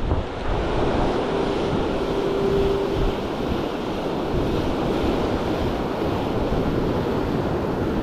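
Ocean surf breaking and washing over the jetty's boulders, a steady rushing, with wind buffeting the microphone.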